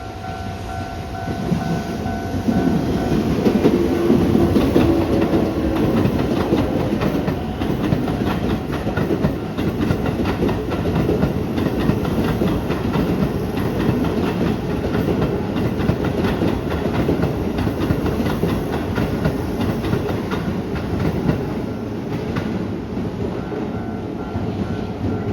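Keisei 3700-series electric train passing over a level crossing, its wheels clattering over the rail joints, the rumble building about two seconds in and easing near the end. The crossing's warning bell rings at the start and again near the end.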